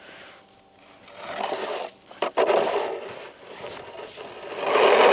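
Snow being scraped and pushed off pond ice with a shovel: three rough scraping strokes, the last, near the end, the longest and loudest.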